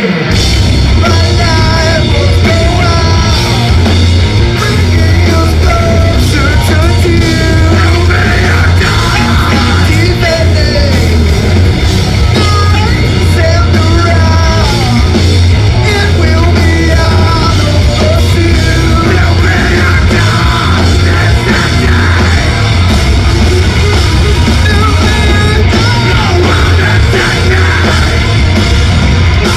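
Heavy metal band playing live at full volume, a dense, steady wall of distorted guitars, heavy bass and drums.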